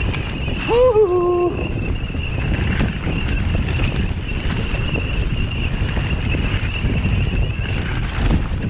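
Wind rushing over the microphone and knobby tyres rolling over a dirt trail as a Propain Tyee mountain bike descends, with a steady high tone underneath. A short pitched sound, rising then dropping, comes about a second in.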